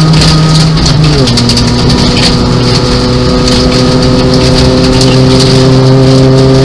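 Nissan Micra 1.0 rally car's engine heard from inside the cabin, pulling hard on a gravel stage: the revs drop at a gear change about a second in, then climb slowly. Gravel rattles and patters against the underside of the car throughout.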